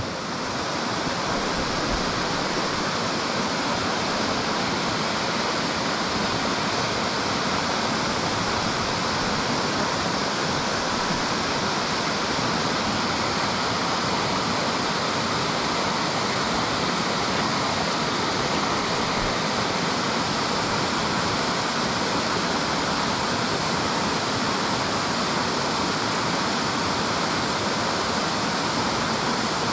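Steady rush of a fast-flowing river, an even wash of water noise that does not change.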